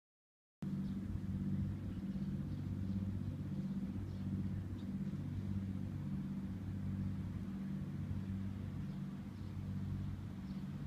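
Railway level-crossing alarm sounding, two tones alternating in a steady rhythm about twice a second over a low rumble; it cuts in abruptly under a second in.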